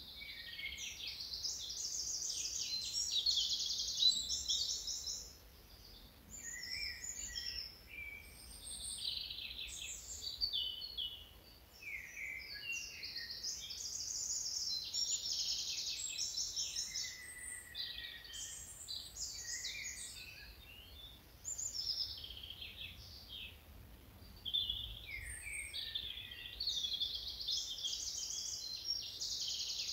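Songbirds singing: phrases of varied high chirps and fast trills, one after another with short pauses between them.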